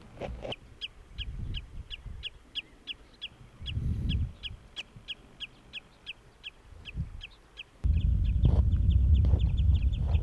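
A small bird calling in a long, regular series of short, high, down-slurred notes, about three a second, quickening near the end. A loud low rumble sets in suddenly about eight seconds in.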